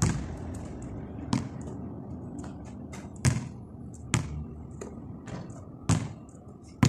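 Basketball bouncing on a concrete court: a sharp slap with each bounce, several bounces at uneven intervals about one to two seconds apart.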